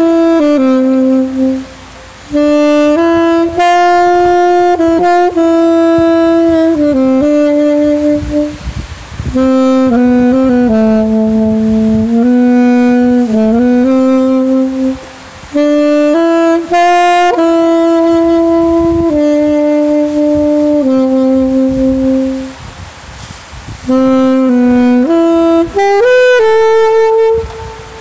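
Saxophone playing a slow melody of long held notes, in phrases broken by short pauses for breath.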